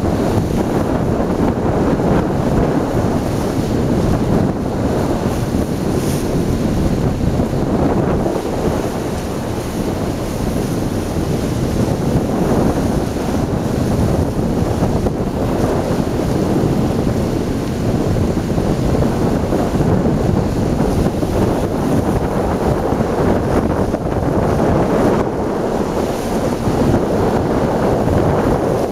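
Strong wind buffeting the camera microphone: a loud, steady rushing noise without a break.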